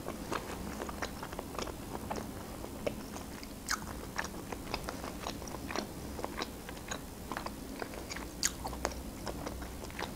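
Close-miked chewing of grilled meat off a rib bone, with a run of short wet mouth clicks and smacks, a couple each second; two sharper clicks stand out, one about a third of the way in and one a little past the middle.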